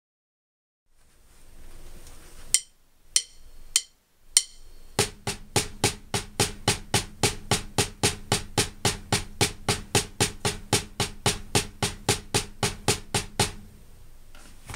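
Wooden drumsticks playing single paradiddles (sticking RLRRLRLL) on a rubber drum practice pad: an even run of sharp taps, about three a second, that stops near the end. It is preceded by four sharp count-in clicks.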